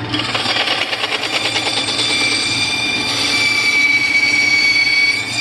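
Bandsaw cutting a wooden letter R: a steady high-pitched whine from the blade in the wood over the motor's low hum. The whine grows louder, then stops sharply just before the end as the cut finishes, while the hum runs on.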